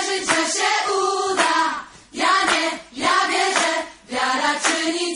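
Background music with a choir singing sung phrases, dipping briefly twice between phrases.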